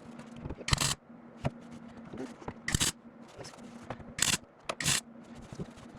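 Four short welding bursts on car body sheet metal, each a brief crackle of about a fifth of a second, as a patch panel is tacked into place, over a faint steady hum.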